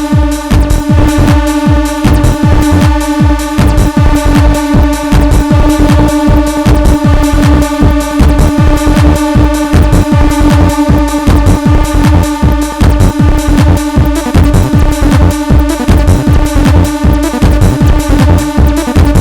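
Live hardware acid techno jam: a steady kick drum under a fast, repeating sequenced synth pattern, with a long held synth tone. The acid bassline comes from a Behringer TD-3, and the drums from a Maschine+.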